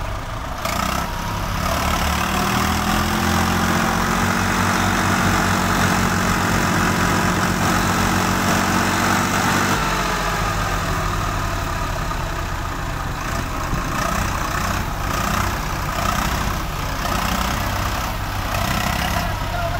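Swaraj 735 XT tractor's three-cylinder diesel engine working under load as it pulls a trailer through mud. The revs rise about two seconds in, hold, then drop back about halfway through.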